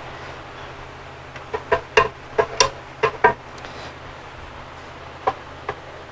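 Steel pry bar and screwdriver clinking and knocking against an aluminum timing chain cover held on by sealant and dowel pins, as it is pried at: a quick run of sharp clicks, then two more a couple of seconds later, over a steady low hum.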